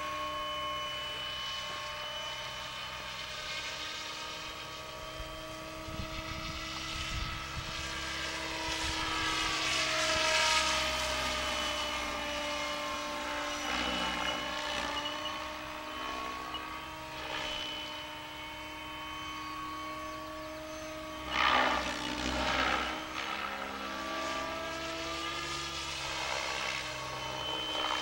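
Protos Max V2 electric radio-controlled helicopter in flight. Its motor whine and rotor blade noise rise and fall in pitch as it manoeuvres, with two louder rushes of blade noise about three-quarters of the way through.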